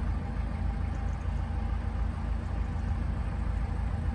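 Steady low rumble of a narrowboat under way, its engine running at cruising speed, with wind noise on the microphone.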